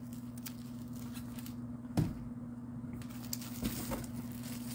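Plastic-wrapped bolts of quilting fabric being handled and set down: a soft thump about two seconds in, then light rustling and a few faint knocks, over a steady low hum.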